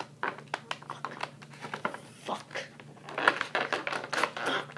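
Clear plastic bag crinkling and crackling as it is handled with the fingers, growing busier and louder about three seconds in.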